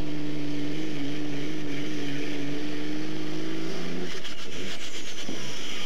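Diesel pickup truck engine held at full throttle and steady high revs while pulling a weight-transfer sled. The engine note stops abruptly about four seconds in as the pull ends, followed by a rougher, noisier stretch.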